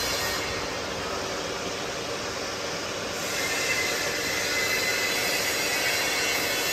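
Vacuum homogenizing mixer machinery running: a steady mechanical hum with thin whining tones, and a higher whine joining about three seconds in.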